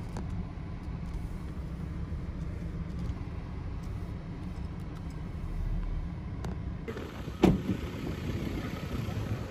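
Car running at low speed, heard from inside the cabin as a steady low rumble of engine and road noise. About seven seconds in this gives way to wind buffeting the microphone outdoors, with one sharp knock shortly after.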